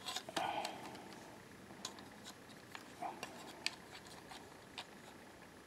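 Plastic placement tool and model car clicking and knocking lightly against a magnetic levitation base as they are positioned by hand. There is a quick cluster of knocks and a brief scrape at the start, then a few scattered sharp clicks, the loudest about three and a half seconds in.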